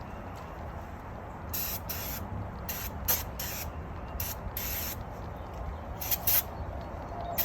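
Aerosol brake cleaner sprayed in a series of short hissing bursts, about eight, starting about a second and a half in. It is washing loose rust and debris off the wheel hub knuckle area.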